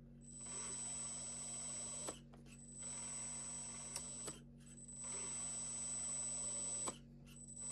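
Electric hydraulic pump of a 1/14 scale hydraulic tracked skid-steer loader running in three spells of about two seconds each, with a high whine, as the grapple cylinders are worked. The pump is mixed to the equipment channel so it runs only while the stick is moved, and it is set to 40–50% speed.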